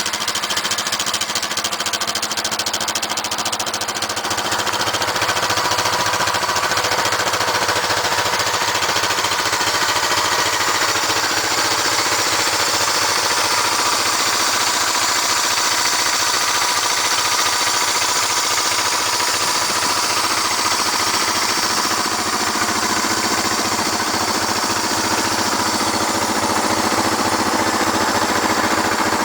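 1971 Honda CL350 K3's air-cooled parallel-twin four-stroke engine running steadily just after start-up, getting a little louder about five seconds in.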